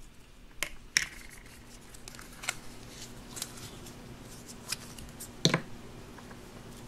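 Handling of a plastic Play-Doh tub and plastic playset pieces on a wooden table: scattered light clicks and taps, with one louder knock about five and a half seconds in.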